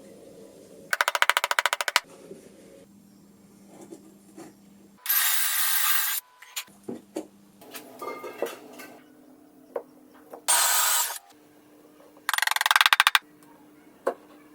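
Power-tool noise in four short bursts, two of them as a fast rattle, with a low steady hum running between the bursts.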